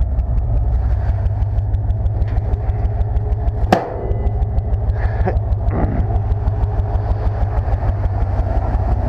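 Pickup truck engine idling steadily with an even low pulse, and one sharp knock about four seconds in, followed by a couple of fainter knocks.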